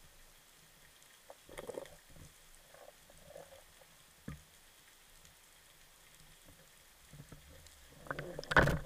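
Underwater handling noise on a speargun: scattered faint knocks and scrapes as the shooting line and speared fish are worked by hand, then a louder flurry of knocking and scraping near the end.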